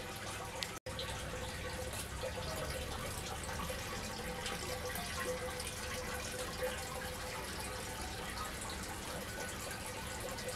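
Tiered candle-stand water fountain running, with water spilling from bowl to bowl in many small streams: a steady trickle and splash with many small drips. The sound cuts out for an instant just under a second in.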